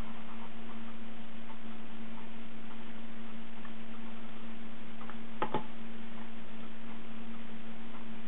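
Steady low hum from a running Macintosh SE/30, with a single mouse-button click about two-thirds of the way through.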